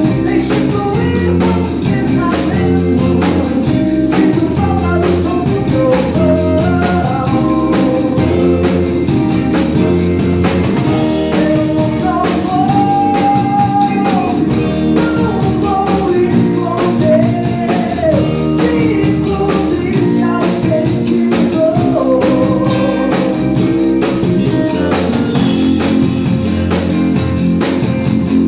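Rock band playing live at rehearsal: guitars and drum kit with a wavering melodic lead line over them.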